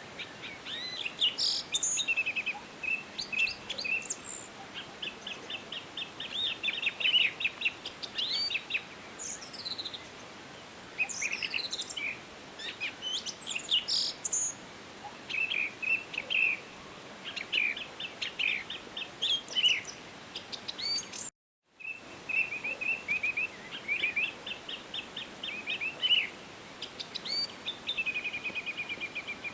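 Several songbirds chirping and trilling in quick, repeated phrases over a faint steady background hiss. The sound cuts out completely for a moment about two-thirds of the way through, then the birds carry on.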